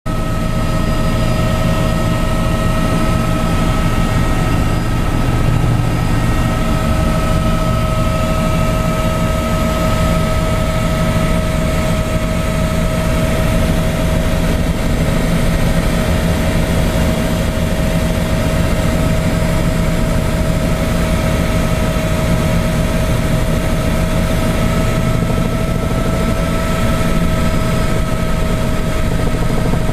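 Helicopter engine and rotor running steadily, heard from inside the cabin: a constant low drone with a steady high whine over it.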